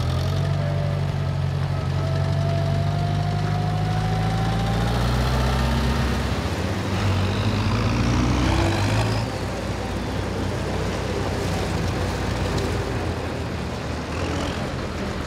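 Big diesel farm tractors running as they drive past in a line, their engines giving a steady low hum. About halfway through, one engine's pitch rises as it speeds up, then falls back.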